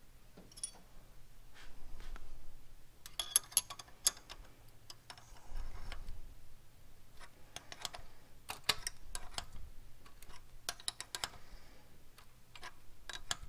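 Small ratcheting wrench clicking in several short runs as a nut is tightened on the throttle-cable linkage of an Edelbrock AVS2 carburetor.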